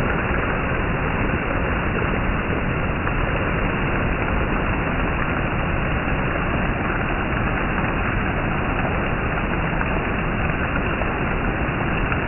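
Heavy monsoon rain falling steadily, a dense even hiss with no distinct drops or pauses.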